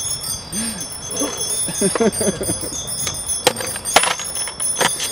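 Men's voices talking indistinctly, then three sharp knocks in the second half as a mountain biker rides the concrete bowl of the skatepark.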